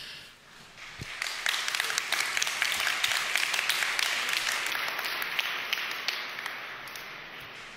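Audience applauding: a crowd's clapping swells about a second in and slowly fades toward the end.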